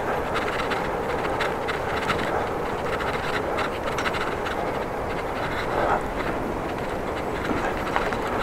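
Bicycle being ridden: a steady rushing noise of tyres and air, with many small, irregular clicks and rattles from the bike.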